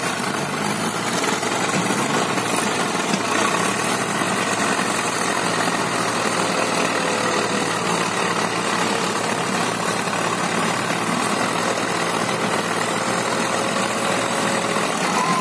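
Several diesel tractor engines, a Swaraj 744 FE among them, running together steadily while hitched in a line to pull out a bogged tractor and its loaded trolley.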